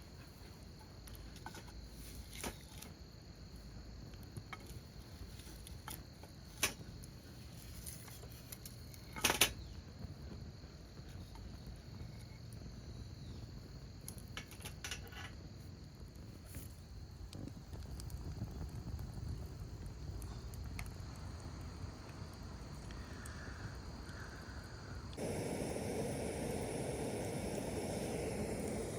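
Quiet campsite ambience: a steady high insect trill with a few sharp pops from a wood campfire. Near the end it changes abruptly to a louder steady hiss.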